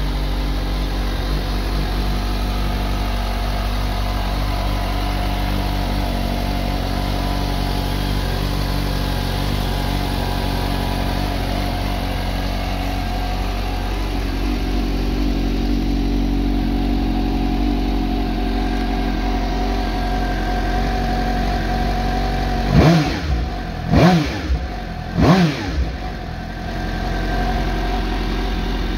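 2020 Suzuki GSX-S750's inline-four engine idling steadily, then near the end three quick throttle blips about a second apart, each rev rising and dropping back to idle.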